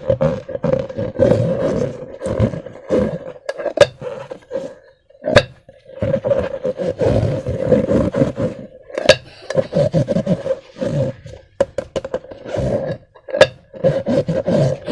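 Slime and rubber balloons being squeezed and worked by hand: irregular rubbery squeaks, groans and squelches, with a few sharp snaps along the way.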